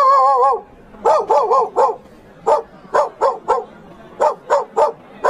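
A dog barking: a long wavering cry at the start, then quick runs of three or four short barks with brief pauses between them.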